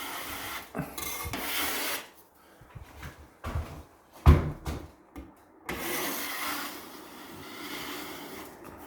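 Drywall taping knife scraping over dried joint compound on a wall, shaving down ridges in place of sanding, in long scraping strokes. A sharp knock sounds about four seconds in.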